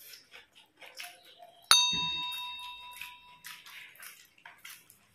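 A single sharp bell-like ding about two seconds in, ringing and fading away over the next two seconds, over soft wet clicks and lip-smacks of people eating by hand.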